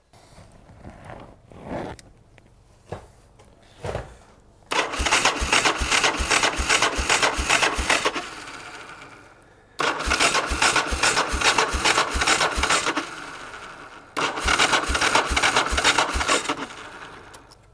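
Gilera Nordwest's single-cylinder engine cranked on the electric starter in three tries of about three to four seconds each, with a slow, regular beat of about three pulses a second. It does not fire, and the cranking slows and fades, the sign of a flat battery. A few light knocks come first.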